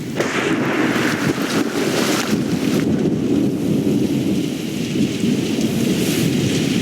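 Steady heavy rain falling as a thunderstorm soundscape, with a low rumble beneath the downpour.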